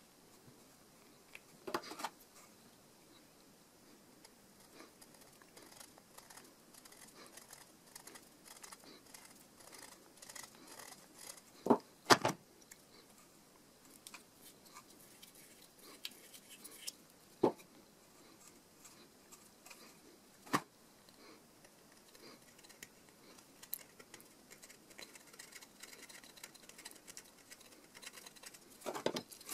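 Small handling sounds from a plaster cast of a skateboard wheel: faint scratching and rubbing of fingers and a metal blade on the plaster, with a few sharp clicks and taps, the loudest a quick double click about twelve seconds in.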